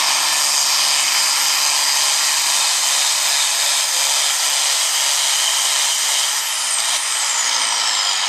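John Deere 4450 tractor's turbocharged six-cylinder diesel running flat out under load as it pulls the sled. About six seconds in the throttle comes off and a high turbocharger whine winds down, falling steadily in pitch.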